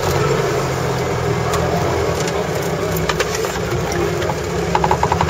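Off-road 4x4's engine running steadily at low revs, heard from on board as the vehicle drives over rutted dirt, with a few knocks and rattles near the end.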